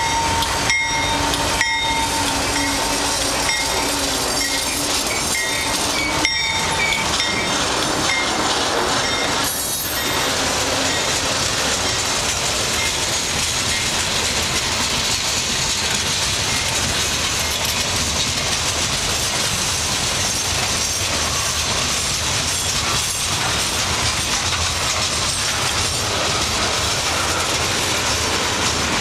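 CN freight train passing close by: the trailing locomotive goes by in the first few seconds with a steady tone, then a long string of boxcars and tank cars rolls past with continuous wheel-on-rail noise and clicking over the rail joints.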